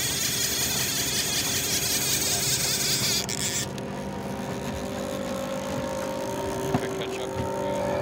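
Boat's outboard motor running steadily with a low hum, under a loud hiss that cuts off suddenly about three and a half seconds in.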